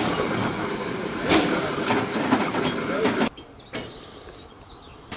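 Steam hissing out around the cylinders and wheels of the standing steam locomotive 25-026, with voices alongside. About three seconds in it cuts off suddenly to a faint quiet background.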